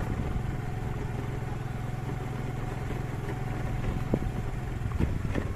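A small engine running steadily at a low even pitch, with a faint steady whine and a few light knocks.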